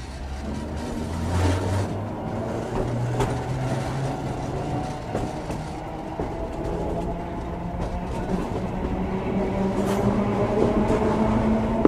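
Ueda Kotsu MoHa 5253 round-window electric railcar pulling away from a station and gathering speed. The whine of its motors climbs steadily in pitch and grows louder over the running noise of the wheels on the rails.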